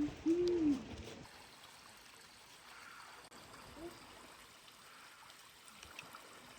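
Faint running water from a creek trickling, an even hiss. In the first second comes a brief voice-like sound that rises and falls.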